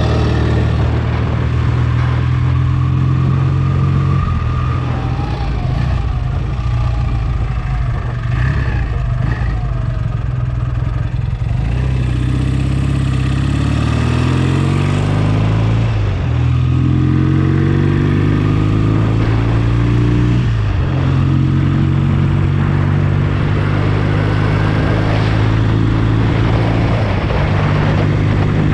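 BSA A65 Lightning's 650 cc parallel-twin engine running under way on a ride: fairly even at first, then revving up and dropping back at a gear change about halfway through, again a few seconds later, and once more near the end.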